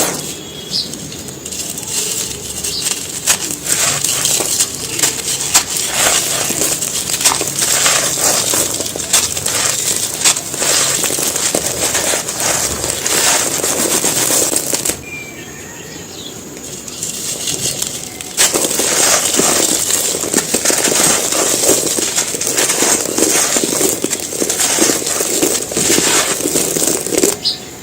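Dry, gritty handmade cement pieces being crushed and crumbled in dense, crunchy crackles, with a quieter pause of about three seconds midway.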